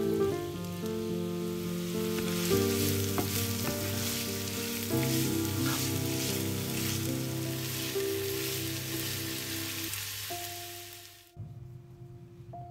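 Diced onion sizzling in hot oil in a nonstick frying pan, stirred with a wooden spatula. The sizzling cuts off suddenly near the end, leaving only soft background music.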